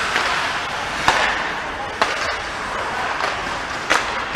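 Ice hockey skates scraping and carving on the ice, with sharp clacks of sticks and puck about a second in, at two seconds and near the end.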